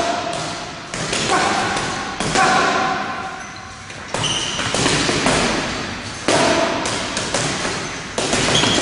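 Gloved punches landing on a hanging heavy punching bag: loud thuds at an uneven pace, some in quick pairs, several followed by a short ringing tone.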